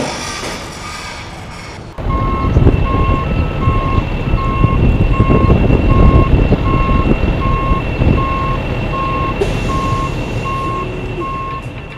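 Heavy truck or machine engine rumbling loudly while its reversing alarm beeps at an even pace, a little faster than once a second. This starts abruptly about two seconds in, after a different steady vehicle noise.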